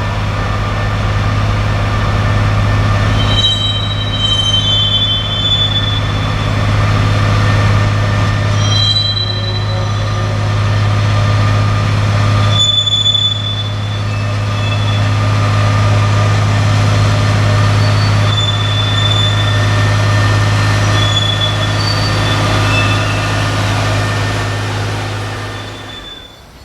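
A train rolling past with a steady low hum and short, high-pitched wheel squeals now and then. The sound cuts off abruptly shortly before the end.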